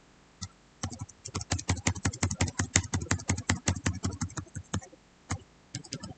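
Computer keyboard keys tapped in a fast run, about seven presses a second for some four seconds, then a few slower taps near the end: repeated arrow-key presses nudging selected controls across a report layout.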